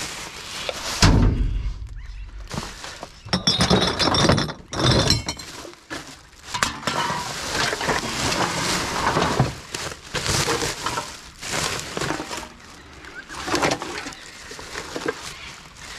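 Glass bottles and other rubbish clinking, knocking and clattering together as a dumpster is rummaged through by hand, with a heavy thump about a second in and glass ringing between about three and five seconds in.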